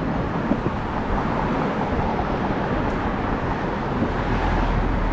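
Skateboard wheels rolling over rough street pavement, a steady grainy rumble.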